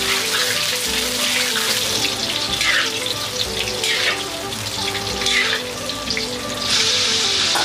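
Slices of long green eggplant sizzling in hot oil in a wok, with a ladle scraping as they are scooped into a wire strainer; the sizzle grows louder near the end. Background music plays throughout.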